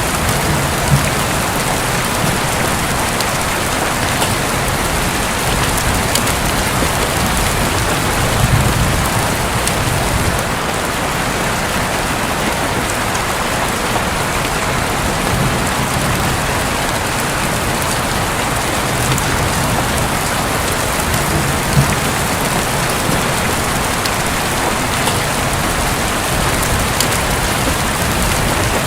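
Heavy, steady rain drumming on a roof, with single drops ticking sharply now and then and a few low rumbles of thunder swelling underneath.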